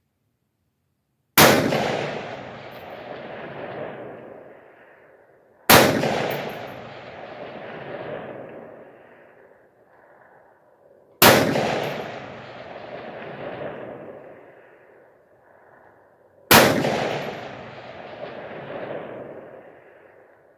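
Four AR-15 rifle shots, roughly four to five seconds apart, each followed by a long rolling echo off the surrounding hills that swells again and dies away over about three seconds.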